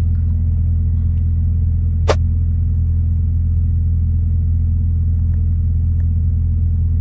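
Heavy truck's diesel engine idling steadily with a deep, even hum, and a single sharp click about two seconds in.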